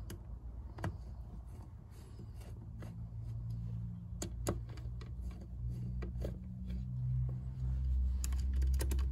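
Small metal clicks and taps of a screwdriver and screws on an aluminium motorcycle carburetor as the screws of its top cover are driven in, scattered throughout and bunched near the end. A steady low hum runs underneath.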